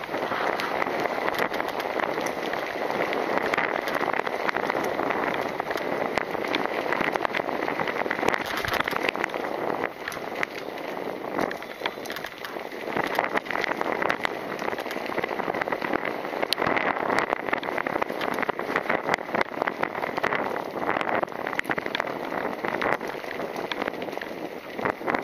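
Mountain bike rolling fast along a dirt and gravel trail: a continuous crunch and rush of the tyres, with frequent small clicks and rattles from stones and the bike.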